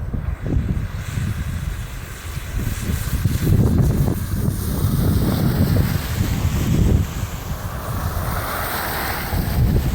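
Blizzard wind buffeting the microphone: a heavy low rumble that swells and eases in gusts.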